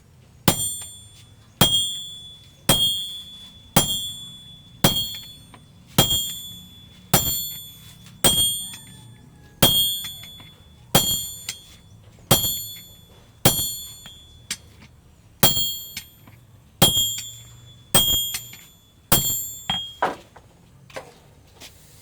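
Blacksmith's hand hammer striking metal on an anvil, about one blow a second, each blow ringing and dying away. The last few blows near the end are lighter.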